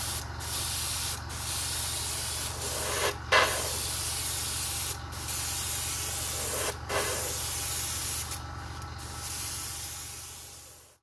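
Small airbrush compressor running with a steady, noisy hum under the hiss of an airbrush spraying thick cellulose high-build primer. The spray hiss breaks off briefly several times as the trigger is eased, and both stop abruptly near the end.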